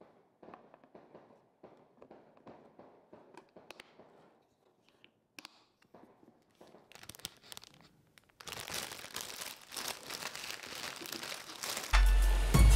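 A plastic snap-lock lid being fitted onto a glass food container: faint rustling and light clicks as it is pressed on, with a few sharper clicks after about seven seconds. About two-thirds of the way in a louder, steady crackling starts, and music comes in near the end.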